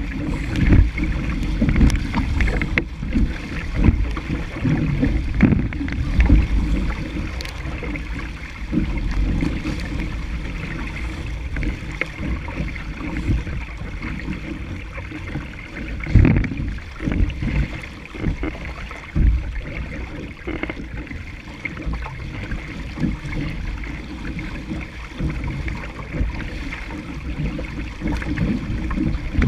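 Wind buffeting the microphone in irregular gusts over steady water rushing and splashing along a sailing dinghy's hull as it moves fast through chop.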